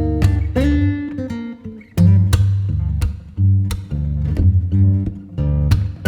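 Background music: strummed and plucked acoustic guitar with a bass line.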